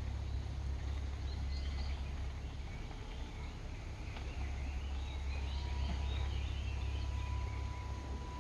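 Outdoor ambience: a steady low rumble with birds chirping, the chirps busiest past the middle, and a thin steady high tone that comes in about halfway.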